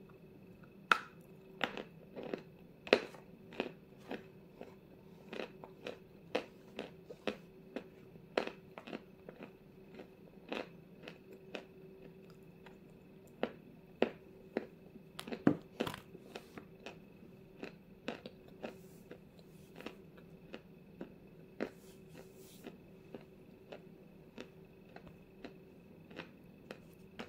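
Close-up crunching of dry Vasilpolye 'Zefirka' chalk pieces being bitten and chewed in the mouth: sharp, irregular crunches about one to two a second. They are loudest in the first few seconds and again around the middle, then grow sparser and softer toward the end.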